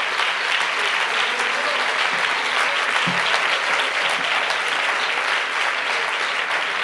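Audience applauding, a steady, even round of clapping.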